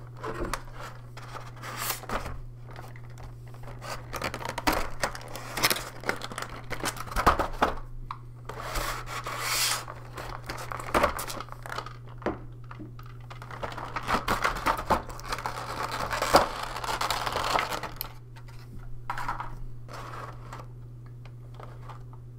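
Clear plastic packaging being slit with a utility knife and pulled off a plastic blister tray: crinkling, tearing and scraping in clusters of sharp clicks, with the longest stretches of rustling around ten seconds in and from about fourteen to eighteen seconds. A steady low hum runs underneath.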